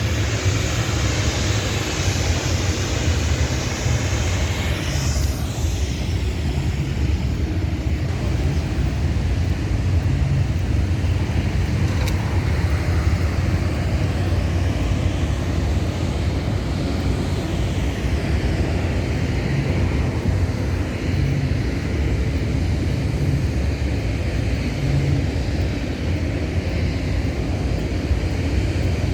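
Steady traffic noise of vehicles passing along a busy city street, with a dense low rumble that holds even throughout.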